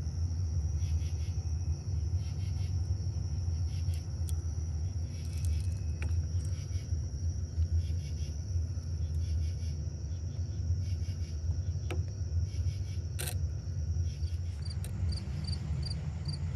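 Steady low rumble with insects trilling high and thin throughout, a few soft clicks, and a quick run of five short high chirps near the end.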